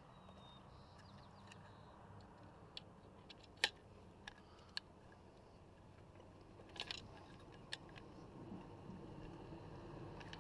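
Scattered sharp clicks and light knocks from hand work with car parts and tools, the loudest about three and a half seconds in and a quick cluster near seven seconds, over a faint steady hum.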